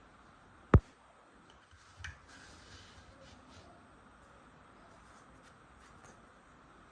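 Toy tool pieces being handled: one sharp, loud click under a second in, then a softer knock about two seconds in with a brief rustle and a few faint ticks.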